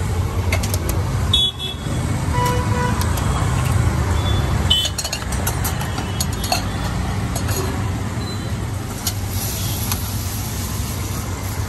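Eggs cracked one after another against the rim of a large flat street-food griddle (tawa), a run of sharp clicks over a steady rumble of road traffic, with a horn tooting briefly a couple of seconds in. Near the end a spatula scrapes and stirs across the griddle.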